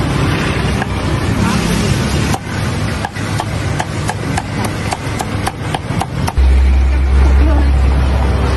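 Deep-frying oil bubbling and sizzling in a large pot of frying pork, with a run of quick light clicks about four a second in the middle and a deep low rumble setting in near the end.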